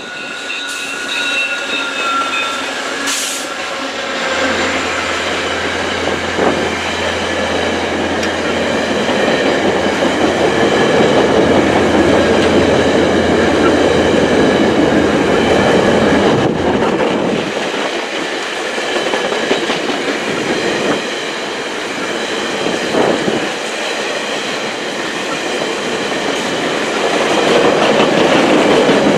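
VIA Rail passenger train passing close by: the diesel locomotives go past with a steady low engine drone. The stainless-steel passenger cars follow with continuous wheel-and-rail rumble and clatter, growing louder again near the end.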